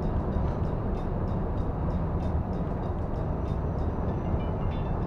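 Steady cab-interior drone of a Scania R440 truck at highway cruise: diesel engine rumble and road noise, with faint light ticks a few times a second over it.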